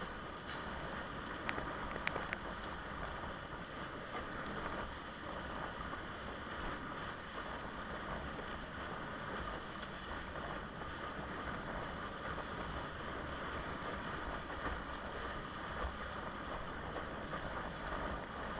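Steady rush of wind and water along a windsurf board under sail, with wind buffeting the microphone; a couple of short ticks about two seconds in.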